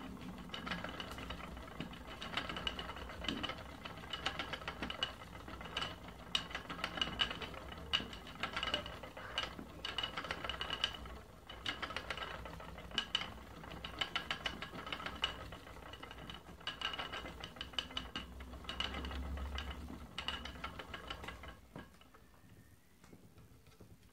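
Wooden spinning wheel running as merino wool is spun, its treadle, wheel and flyer giving a steady run of small clicks and knocks. The wheel comes to a stop about two seconds before the end.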